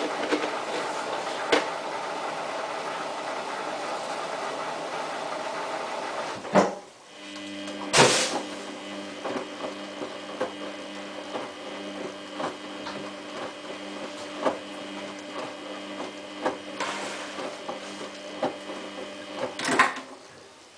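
Samsung WF8804RPA washing machine running a wash: a steady motor hum as the drum turns, a brief pause about six and a half seconds in, a loud clunk about eight seconds in, then a lower steady hum with a run of light clicks, and another thump near the end.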